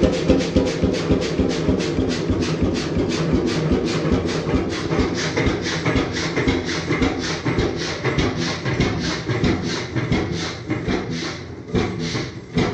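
1928 Beijer 13 hp single-cylinder two-stroke hot-bulb oil engine running with an even beat of firings, about three a second. The beats spread out and get quieter toward the end as the injection pump is turned down, cutting the fuel toward the point where the piston only rocks back and forth at zero RPM.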